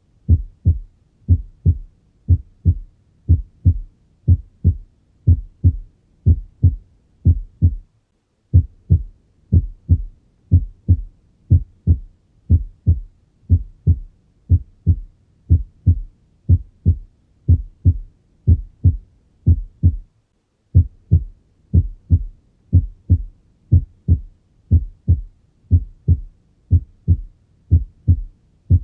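Normal heart sounds through a stethoscope: a steady lub-dub, the first heart sound followed by the second, repeating evenly, with two brief gaps about eight and twenty seconds in.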